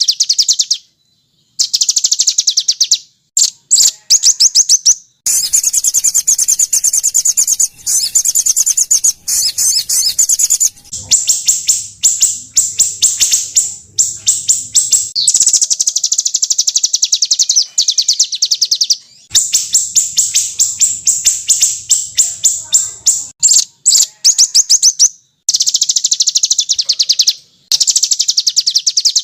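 Small songbirds' harsh, rapid-fire trills ('tembakan kasar'): long runs of very fast repeated high notes in bursts of a few seconds each, broken by abrupt cuts and short silences, as in a spliced bird-training (masteran) recording.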